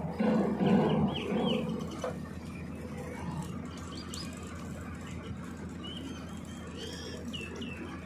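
A few short, loud, low animal calls in the first two seconds, then birds chirping in short bursts, over a steady low hum of machinery.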